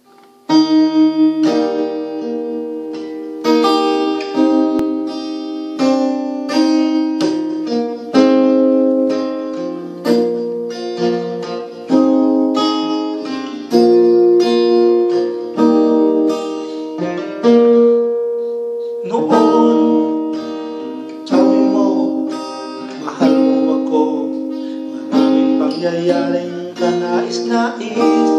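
Acoustic guitar playing a slow introduction of picked chords, each struck about every one to two seconds and left to ring. A man's singing voice comes in about two-thirds of the way through.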